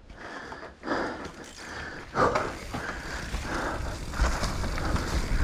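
YT Capra AL2 mountain bike setting off on a downhill run: tyres rolling on dirt with irregular rattling and scuffing, and a low rumble that grows louder about four seconds in as the bike picks up speed.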